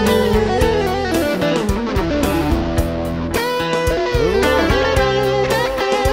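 Live band playing: an electric guitar lead with bent, gliding notes over a bass line and a steady drum beat.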